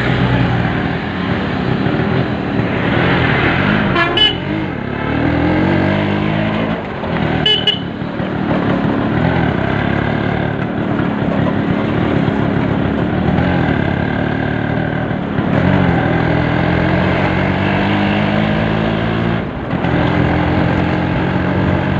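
Yamaha RX135 two-stroke single-cylinder engine running on the road, its pitch climbing and dropping again and again with throttle and gear changes. Two short horn toots sound about 4 and 7.5 seconds in.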